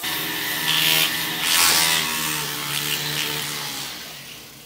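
Handheld rotary tool with a polishing bit running against a silver spoon: a steady motor whine with a rubbing hiss as the bit works the metal. It dies away over the last second or so.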